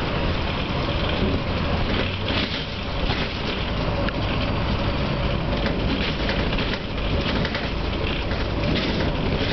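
Inside a NABI 416 diesel transit bus on the move: a steady low engine drone with road noise and rattling from the cabin, and a faint steady tone under it.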